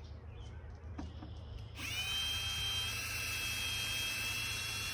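Power drill running at a steady speed, a high whine that starts about two seconds in and keeps going.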